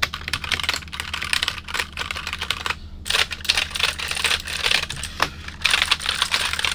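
Rapid typing on a keyboard, many keystrokes a second, with a short break about three seconds in.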